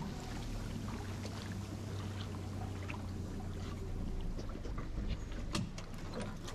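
Outboard motor on a small aluminium motorboat running steadily under way, a low even drone. A few sharp clicks come near the end.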